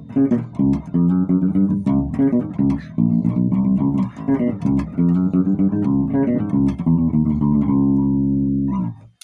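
Electric bass guitar through an amplifier, its pickups and EQ set for a funky tone, playing a quick riff of plucked notes that ends on one held note, which rings briefly and stops near the end.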